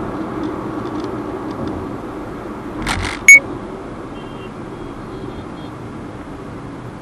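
Steady road, tyre and engine noise inside the cabin of a Hyundai Venue N Line at highway speed. A sharp click about three seconds in, just after a short rush of noise, is the loudest moment, and a few faint high beeps follow.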